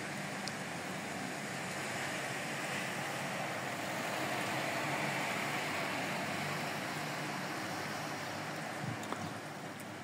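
Steady rain falling on a wet, puddled terrace floor and tiled roofs: an even hiss, with a few light taps near the end.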